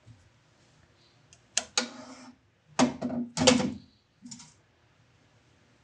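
A few sharp clacks and knocks of metal workshop parts being handled and set down on a hard surface: a pair about one and a half seconds in, two more around three seconds, and a lighter one past four seconds.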